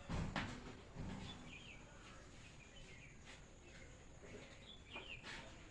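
Two sharp knocks just after the start, then faint bird chirps in the background, in two short bursts.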